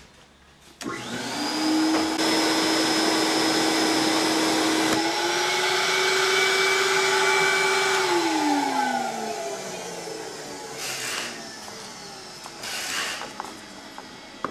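Vacuum cleaner motor driving a homemade PVC pneumatic tube system. It switches on about a second in and runs with a steady whine, which steps up in pitch about halfway through. About eight seconds in it is switched off and winds down with a falling whine.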